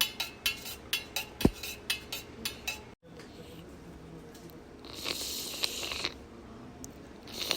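Kitchen handling sounds: a quick run of about ten sharp clicks and taps with one dull knock among them. After an abrupt cut come two short bursts of hissing or rustling.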